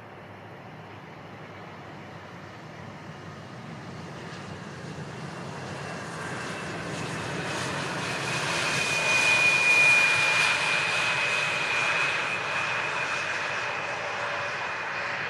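Jet airliner coming in to land and passing close by. Its engine noise builds to a peak about two-thirds of the way in, with a steady high whine over the rush, then eases off slightly.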